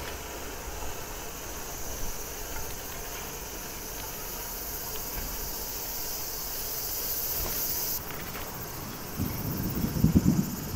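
Steady high-pitched summer insect chorus that drops away suddenly about eight seconds in. Near the end comes a short burst of low rumbling and knocks, the loudest part.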